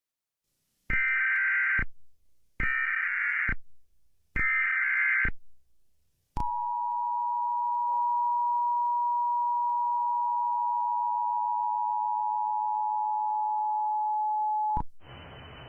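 Emergency Alert System header tones: three bursts of about a second each of shrill digital data warble, then the steady two-tone EAS attention signal, held for about eight seconds before cutting off suddenly into a faint hiss. Together they mark the start of an emergency alert, here a civil danger warning.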